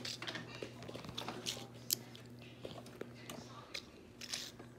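Scattered light clicks, taps and chewing noises of a toddler eating and handling things at the table, the sharpest click about two seconds in, over a steady low hum.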